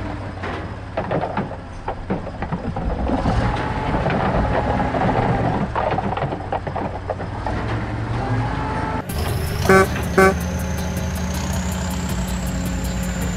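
Plastic toy blocks clattering as they tumble into a toy dump truck's plastic bed. About nine seconds in, the sound changes abruptly to a truck horn blowing twice in quick succession, followed by a steady engine running sound.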